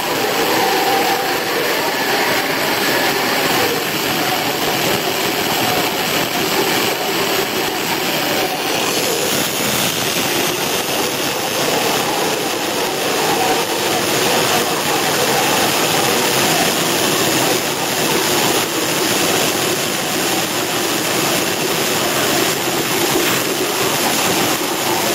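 Water jet cutter cutting a quarter-inch 5160 high-carbon spring steel blade: a loud, steady hiss from the high-pressure jet going through the plate, growing a little brighter about a third of the way in.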